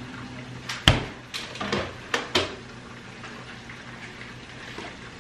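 A few short knocks and clinks of kitchen utensils and dishes being handled, about five in the first half, over a low steady hum.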